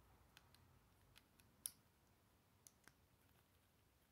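Plastic Lego pieces clicking and tapping as they are handled and pressed onto a model: a few sparse, small, sharp clicks, the loudest about a second and a half in.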